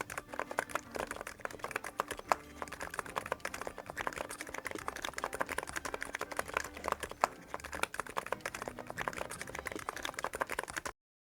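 Typing on an NIZ X99 keyboard with electro-capacitive, non-contact switches and PBT keycaps. A fast, steady stream of keystrokes cuts off suddenly near the end.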